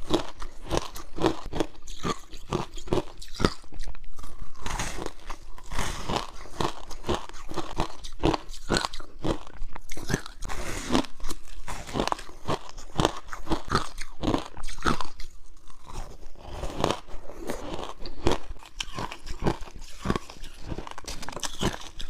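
Close-miked biting and chewing of crunchy frozen passion fruit ice: repeated sharp crunches, a few a second, as the ice cracks between the teeth.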